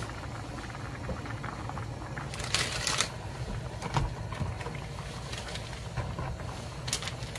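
Spicy broth with scallops in their shells bubbling in a pan, a steady soft simmer. Dry instant-ramen noodle blocks are set on top, making a few brief crackles and knocks.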